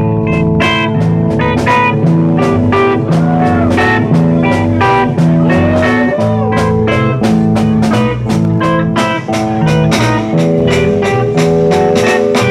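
Black metal band playing live as a three-piece: loud distorted electric guitar, bass guitar and drum kit, with regular cymbal and drum hits throughout.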